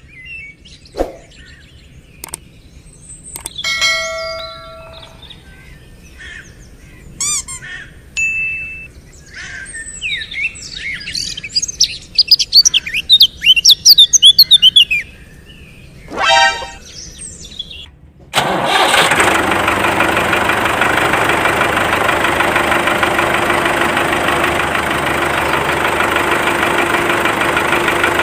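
Birds chirping in scattered calls, with a few short clicks and tones, the chirping thickest and loudest in the middle stretch. About two thirds of the way in, a loud engine-like running sound starts abruptly and keeps going steady.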